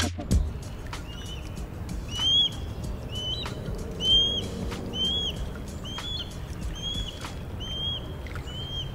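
A bird giving a short, slurred chirp about once a second, nine or so times in a row, over faint background noise.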